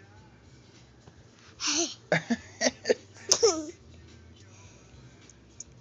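A toddler's voice: a breathy intake about a second and a half in, then a quick run of five or six short catching bursts ending in a brief falling whine, with a sharp click among them.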